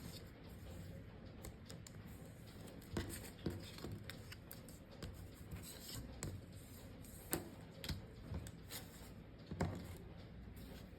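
Faint, irregular snips of scissors cutting paper.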